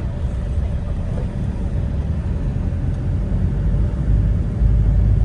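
Steady low rumble of a motor vehicle on the move, growing louder about four seconds in.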